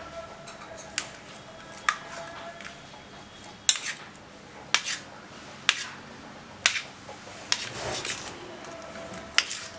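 Metal spoon clinking against a stainless steel plate, about eight sharp clinks roughly a second apart, a few with a faint ring, as a runny egg marinade is spooned over paneer fingers.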